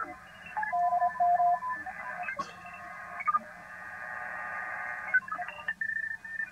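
Shortwave receiver audio from an Icom IC-705 tuned across the crowded 20-meter band during a CW contest: many Morse code signals keying on and off at different pitches over band hiss. Tones come and go as the tuning knob is turned.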